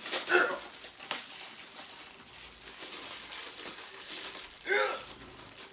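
Plastic wrapping crinkling and rustling as a metal belt is handled.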